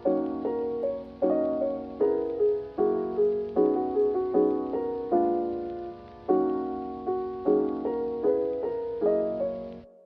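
Background piano music: soft chords and melody notes struck at a gentle, even pace, each ringing and dying away, fading out near the end.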